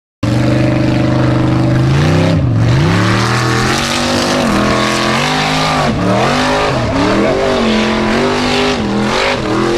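Formula Offroad buggy's engine running hard at high revs. It starts suddenly, holds a steady pitch for about two seconds, then rises and falls again and again.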